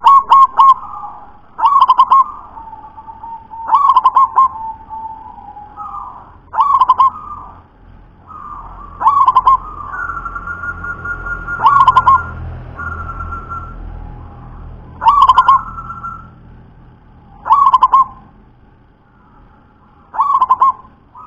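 Zebra dove (perkutut) cooing: about nine loud phrases, each a quick run of staccato notes lasting about half a second, repeated every two to three seconds.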